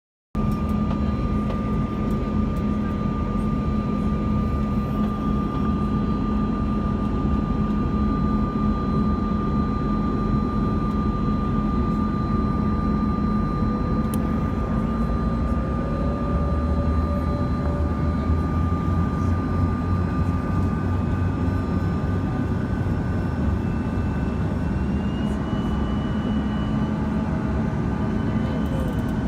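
Cabin noise inside a Bombardier CRJ-200 on approach: the rear-mounted General Electric CF34 turbofans give a steady roar with a high whine, and a few of the engine tones rise in pitch after the middle and again near the end as thrust is adjusted.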